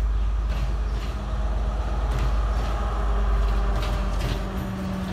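Sri Lanka Railways Class S12 diesel multiple unit pulling into the station: a steady low rumble of engine and wheels on the rails, with a steady hum that grows stronger over the second half.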